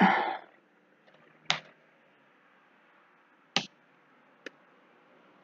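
Computer keyboard keystrokes: three separate sharp clicks a second or two apart, the last one fainter.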